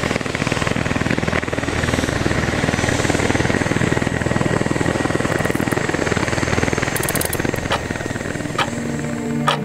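Medical transport helicopter flying off, its rotor chopping rapidly and steadily over a low engine hum. Near the end, music with clock-like ticking beats fades in.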